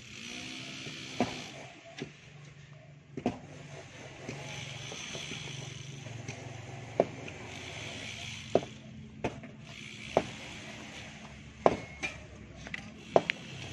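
Hoes and a pickaxe chopping into stony earth while digging a foundation by hand: about ten sharp, irregularly spaced strikes. A steady low hum runs underneath.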